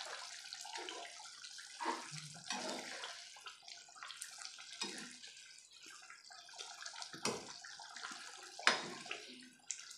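Thick dry-fish curry bubbling in a nonstick pan and being stirred with a steel ladle: wet sloshing and simmering, with a few sharp taps of the ladle on the pan, the loudest about 7 and 8.5 seconds in.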